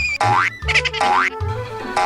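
Two quick rising cartoon 'boing' sound effects in the first second, over bouncy background music with a steady bass line.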